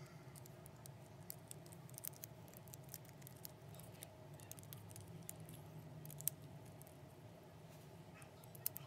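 Faint, irregular small clicks and taps of clear plastic crystal-puzzle pieces being handled and fitted together, with one sharper click about six seconds in, over a low steady hum.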